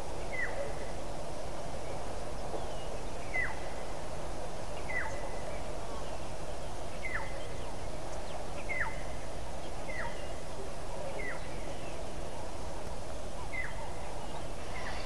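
A bird repeating a short whistle that slides down in pitch, about nine times at intervals of one to two seconds, over the steady noise of flowing river water.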